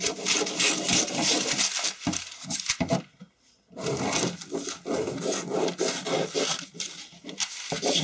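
Scissors cutting through a large sheet of pattern paper, a steady run of quick crunching snips with the paper rustling as it is turned. The cutting stops briefly about three seconds in, then carries on.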